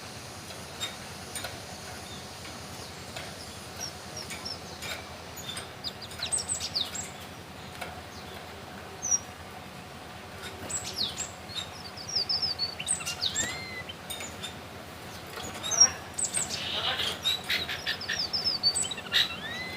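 Red avadavat (strawberry finch), trained on canary song, singing in several bouts of short high chirps and quick twittering runs.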